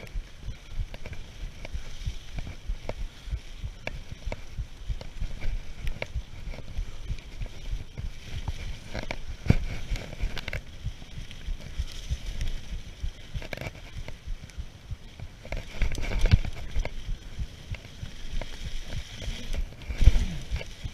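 Mountain bike riding fast down a leaf-covered dirt trail: tyres rushing through the leaves and the bike rattling over bumps, with a run of low knocks and a few heavier thuds, the heaviest near the end.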